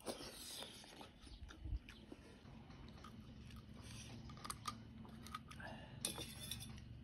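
Quiet chewing, with scattered light clicks and scrapes of a spoon against the food and a steel plate. A faint low hum comes in about halfway through.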